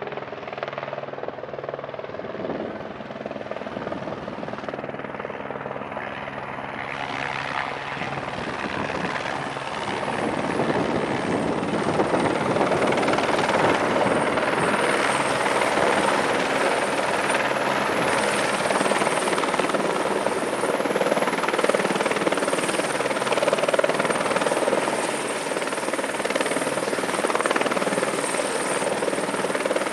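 Airbus Helicopters H125 (AS350B1 Écureuil), powered by a Turbomeca Arriel 1D turboshaft, coming in to land: main rotor beat and engine running, growing louder about a third of the way in as it closes in and hovers down onto the pad. A high turbine whine comes up about halfway through.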